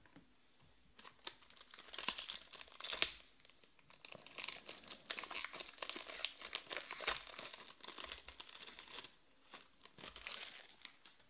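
Foil wrapper of a trading-card pack being torn open and peeled off the cards, crinkling in irregular bursts, with one sharp crackle about three seconds in.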